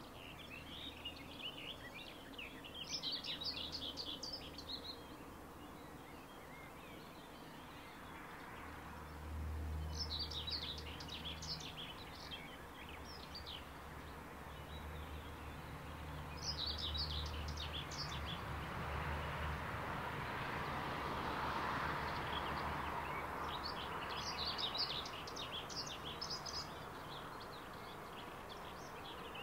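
Songbirds singing in short bursts of chirps several times, over the low rumble of a passing train moving away. The rumble fades out about two-thirds of the way through.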